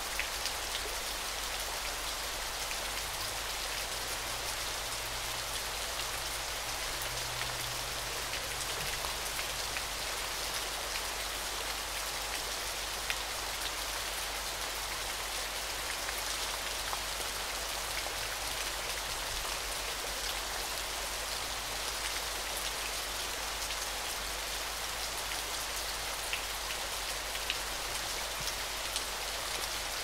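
Steady hiss of falling, splashing water, like heavy rain or a waterfall, with scattered sharper drip-like ticks.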